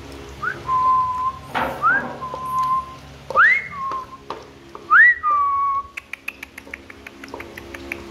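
A person whistling four times, each a short upward-sliding note that settles into a held tone. Near the end, a quick run of clicks as the puppy eats kibble from its plastic bowl.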